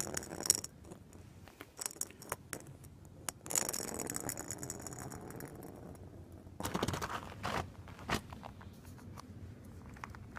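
Scattered scrapes, clicks and rustling from someone moving about on snow and handling the recording phone, with two longer scraping rustles, one about three and a half seconds in and one about six and a half seconds in, and boot steps in snow near the end.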